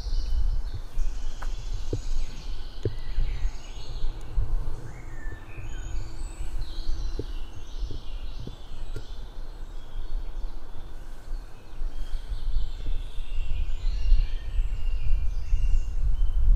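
Several woodland birds singing at once, many short overlapping songs and calls throughout. Under them runs a constant low rumble on the microphone.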